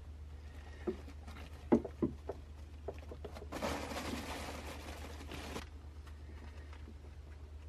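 Sharp clinks and knocks of a wrench and hands against the oil filter on a Volvo Penta D1-30F marine diesel as the old filter is worked loose, followed near the middle by about two seconds of dense rustling hiss.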